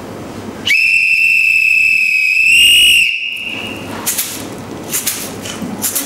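A hand-held whistle blown in one steady high blast of about two and a half seconds, rising slightly just before it stops, like a train's departure whistle. A few faint clicks follow.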